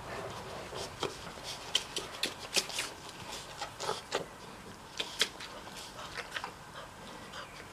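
Mastiff puppies suckling at their mother's teats: an irregular string of short, wet smacking clicks.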